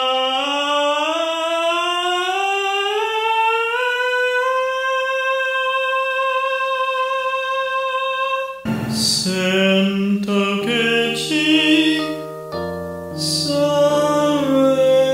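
A singer demonstrating a mix of pharyngeal voice and falsetto: one vowel slides smoothly up about an octave and is held steady on the high note. About nine seconds in, the voice sings a short worded phrase over keyboard accompaniment.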